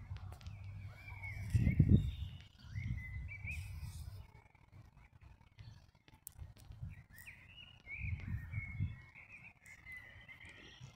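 A bird calling in long wavering phrases, in two stretches separated by a pause, over gusts of wind rumbling on the microphone, loudest about two seconds in.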